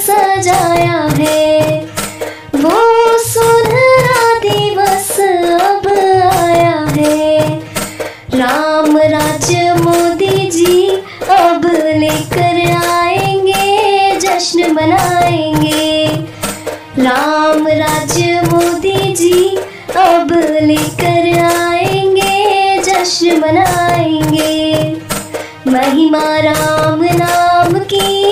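Hindi devotional bhajan song: a melody with ornamented glides in phrases of a few seconds, over a steady hand-percussion beat.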